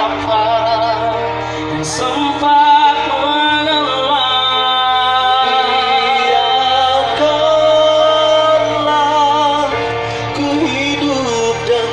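Male nasyid vocal group singing in harmony, holding long notes with vibrato over a steady low part.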